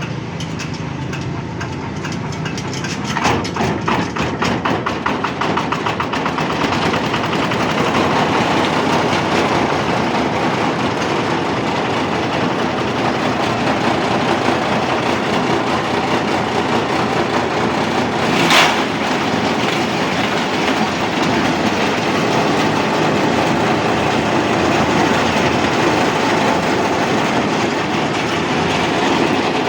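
Single-cylinder Tong Fung 185 10 HP diesel engine running a grass and palm-frond chopper, with a rapid rhythmic knock. It picks up speed about three seconds in, then runs steadily. One sharp crack about 18 seconds in.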